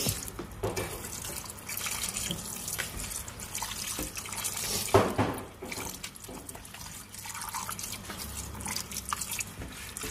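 Tap water running into a plastic colander of minced pork in a stainless-steel sink, splashing as a hand works the meat under the stream, with a louder splash about halfway through.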